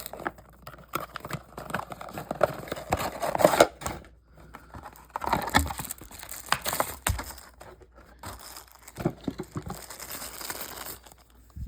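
Packaging being handled and opened by hand: irregular crinkling, tearing and rustling with scattered clicks, in uneven spurts with short pauses.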